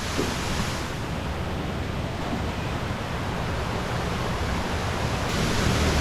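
Rushing water running steadily as a continuous noisy hiss and rumble, a little louder in the last second.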